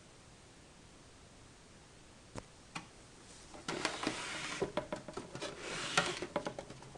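Handling noise: two light clicks, then from about halfway a busy stretch of rustling and clattering knocks.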